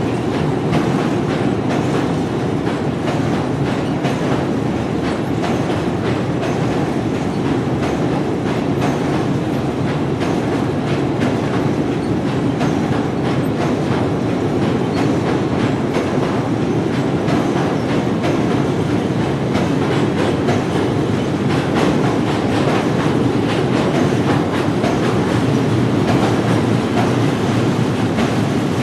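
Train running on rails: a steady rumble with the clickety-clack of wheels over rail joints.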